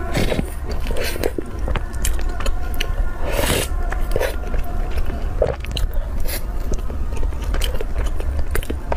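Close-up biting and chewing of a chilled soft cream-filled bun (ice bread), with many short clicks and a louder noisy stretch about three and a half seconds in. A steady low hum runs underneath.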